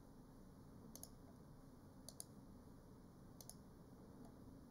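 Faint computer mouse-button clicks over quiet room tone: one click about a second in, then two quick pairs of clicks.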